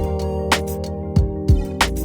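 Background music with a steady beat: sustained synth or keyboard chords over regular kick-drum strokes.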